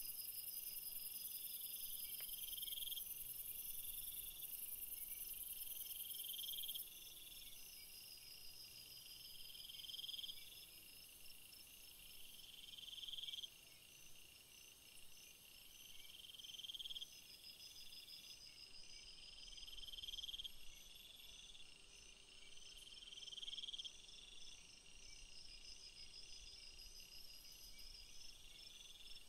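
Faint insect chorus: a short rising chirp repeating every second or two, over a fainter pulsing trill and a steady high hiss that drops away abruptly about seven seconds in.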